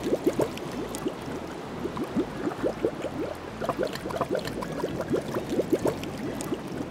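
Shallow seawater sloshing and gurgling around a small toy fishing net as it is swept through the water: a dense run of little bubbling plops.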